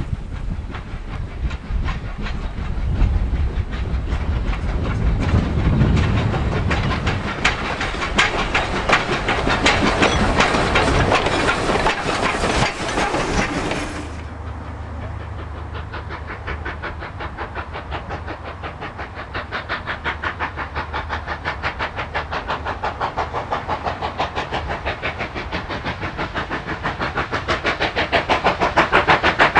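Steam locomotive exhaust beats from a small saddle-tank engine working a passenger train, with steam hiss, building up to about halfway in. The sound then cuts to the rapid, regular exhaust beats of NSW C38 class Pacific 3801 hauling a long train, growing louder as it approaches.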